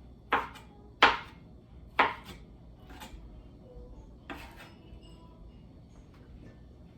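Kitchen knife cutting jackfruit and striking the cutting board: about five sharp knocks roughly a second apart, stopping a little over four seconds in.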